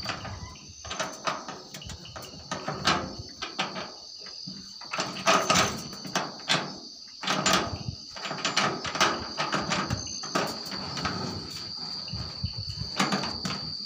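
A steady high trill of night insects such as crickets, with irregular rustles and knocks of close handling on top.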